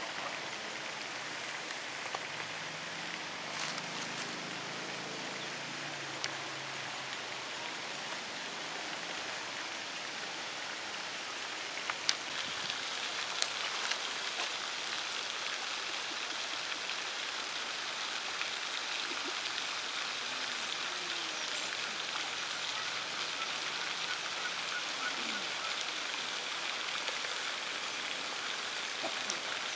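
Steady outdoor rushing noise, growing somewhat louder about twelve seconds in, with a few faint clicks.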